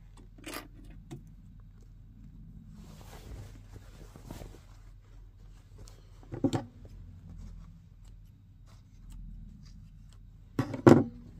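Fabric rustling quietly as a bag's outer and lining are handled, with a few sharp clicks from sewing clips being snapped onto the top edge: one about six seconds in and two close together near the end.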